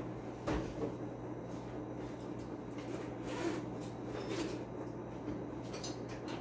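A single knock about half a second in, then scattered light clicks and clatter of things being handled, over a steady low hum.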